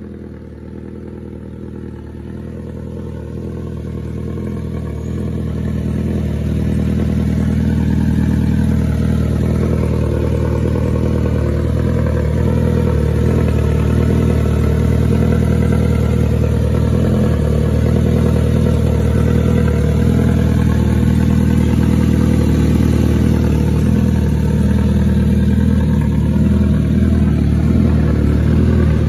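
Suzuki Katana's 999 cc inline-four engine idling steadily at an even pitch. It grows louder over the first several seconds, then holds level.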